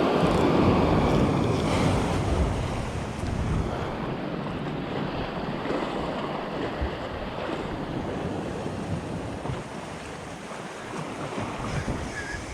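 Sea waves washing against rocks, with wind buffeting the microphone. A surge is loudest in the first couple of seconds, then slowly draws back.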